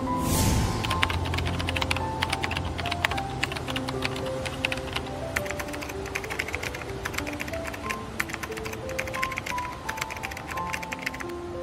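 Rapid computer-keyboard typing clicks, a sound effect for text typing onto the screen letter by letter, over soft piano music; the clicks stop near the end. A brief whoosh opens it.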